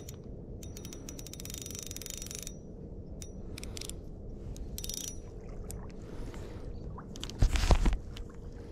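Spinning reel clicking in quick ratcheting bursts, the longest about two seconds. A loud low thump comes near the end.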